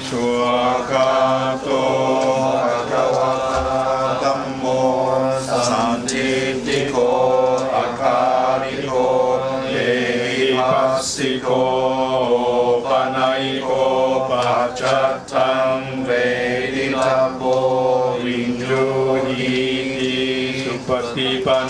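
A Buddhist monk chanting Pali devotional verses: a continuous, rhythmic recitation held close to one reciting pitch.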